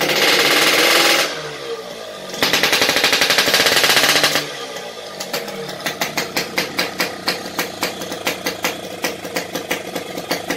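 Yamaha RX-King two-stroke single-cylinder engine revved twice with the throttle, each rev lasting one to two seconds, then dropping back to an uneven, popping idle. The carburettor is set over-rich, so the engine is sluggish to pick up revs and won't scream.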